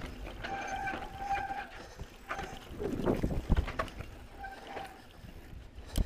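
Mountain bike riding down a rocky dirt trail: rattling, with thumps as the wheels hit rocks, the hardest about three and a half seconds in and again at the end. There are short, high, steady squeals from its mechanical disc brakes as the rider brakes.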